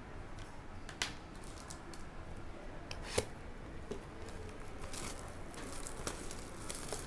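Rustling, crinkling and clicking as a sealed trading-card hobby box and its packs are handled and opened, with a couple of sharp clicks.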